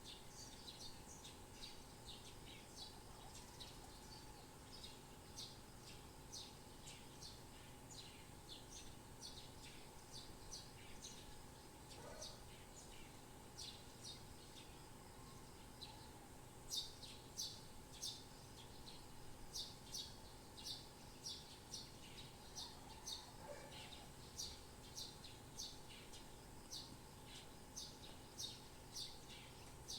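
Small birds chirping: a steady string of short, high chirps, several a second, getting louder and busier about halfway through, over a faint steady hum.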